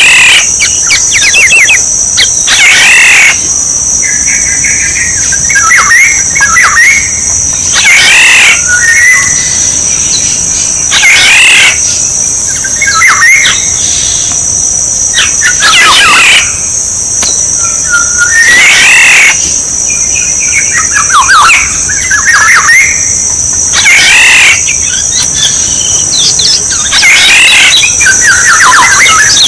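Oriole calling over and over: fluty whistled phrases broken every four seconds or so by a short, loud, rough call, as used for a bird-lure recording. A steady high-pitched buzz runs under it.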